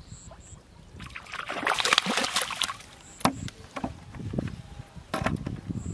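Water splashing and sloshing at the pond's edge for about two seconds, then a few sharp clicks. A short, high two-note chirp comes three times, a few seconds apart.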